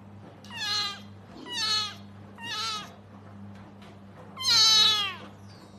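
Ginger kitten meowing four times, thin high-pitched cries that each fall in pitch, the last one the loudest and longest.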